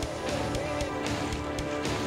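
Background music with a steady held tune and a regular beat of about three or four hits a second.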